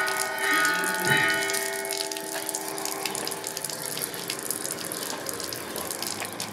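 Water running steadily, as from a fountain tap. Held musical tones fade out over the first two or three seconds.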